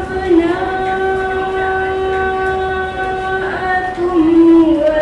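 A high singing voice holds long, steady sung notes with small ornamental bends, stepping down to a lower note about four seconds in.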